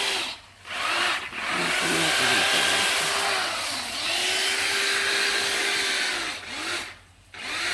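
Electric garden cutting tool's motor running in repeated bursts of about two seconds: each time it spins up, holds a steady whine and winds down again, with brief stops about half a second in and near the end.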